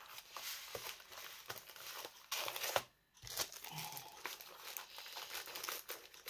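Crinkling and rustling of a diamond painting kit's cardboard box and plastic packaging as it is handled and the box flap is folded and tucked in, with small clicks and a brief silent break about three seconds in.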